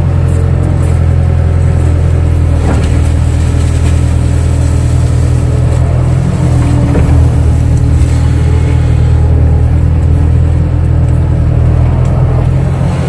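Kato crawler excavator's diesel engine running steadily at working revs as the machine digs, a loud, even low drone with a few faint knocks.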